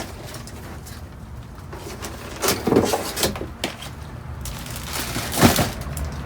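Things being moved around in a dumpster: a few knocks and thuds, a cluster about two and a half to three and a half seconds in and the loudest single knock about five and a half seconds in.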